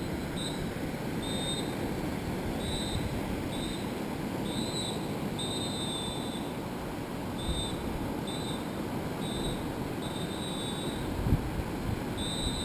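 Surf washing onto a sandy beach, with wind buffeting the microphone in low gusts. Over it, a high, thin tone comes and goes about once a second.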